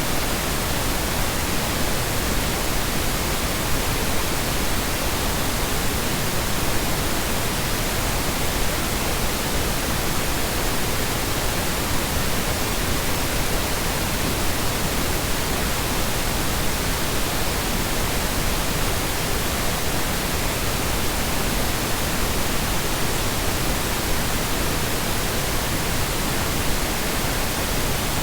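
Steady generated colour noise: an even, unbroken hiss spread across the whole range, with no changes in level.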